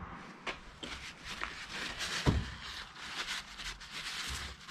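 Workshop handling sounds: scattered light clicks and a knock about two seconds in, then a rag rubbing against the inside of a cast differential casing as it is wiped clean.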